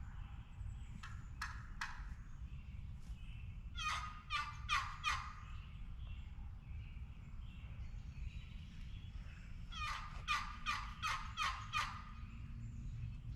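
Wild turkey yelping: a faint pair of notes, then a run of about five loud notes, then about seven more near the end, each about a third of a second apart, over a steady low rumble of wind and rain.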